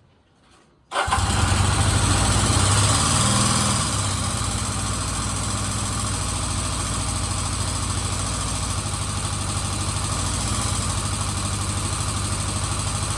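1977 Kawasaki Z400 parallel-twin motorcycle engine starting about a second in on part choke from cold. It runs louder for the first few seconds, then settles into a steady idle.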